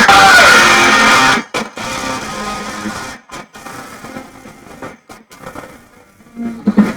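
Guitar music played through a repaired computer subwoofer speaker set, with no noise from its power circuit, its bad power-supply capacitors having been replaced. The music is loud for about the first second, then drops suddenly and goes on much quieter, broken by brief gaps.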